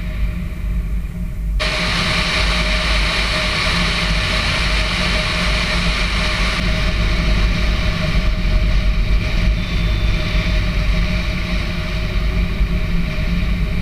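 Wind and road noise picked up by an action camcorder stuck to the outside of a moving car: a steady low rumble, with a louder hiss that comes in sharply about a second and a half in and eases off a few seconds later.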